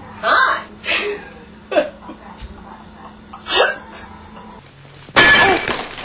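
A person's voice making short, hiccup-like sounds, each a fraction of a second long, with a longer, louder one near the end.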